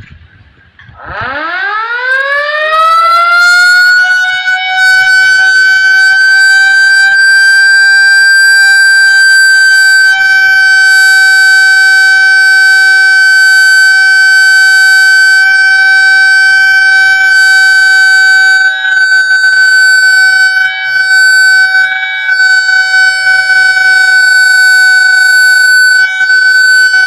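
Civil-defence air-raid siren sounded for a mock drill: about a second in it winds up, rising in pitch over a few seconds, then holds one steady, loud, high tone.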